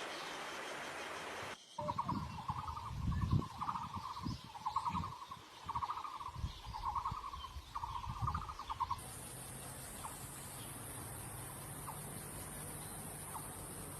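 Maroon oriole calling: a run of about eight short buzzy notes, one roughly every second, over low wind rumble. The notes stop about two-thirds of the way through, leaving a steady high-pitched hiss.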